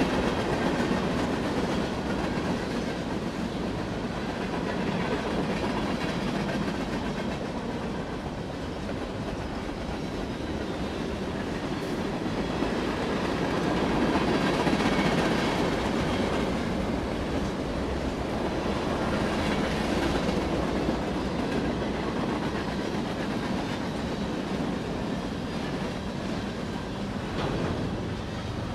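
Loaded hopper cars of a Norfolk Southern freight train rolling past, a steady rumble with the wheels clacking over the rail joints, swelling slightly about halfway through.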